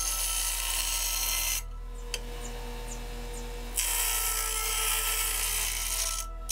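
WEN 6-inch bench grinder running, its wheel grinding the corner of a quarter-inch aluminium plate to round it off: a harsh, hissing grind of metal on the wheel over the motor's steady hum. The grinding stops for about two seconds in the middle while the motor keeps spinning, starts again, and breaks off briefly near the end.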